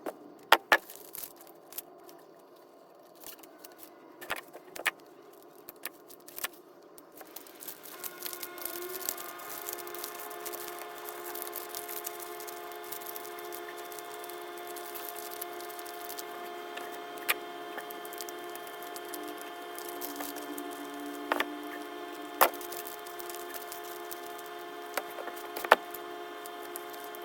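Paper and plastic wrappers being handled: a scatter of sharp clicks, crinkles and rustles. About eight seconds in, a steady hum of several held tones starts, with occasional clicks over it.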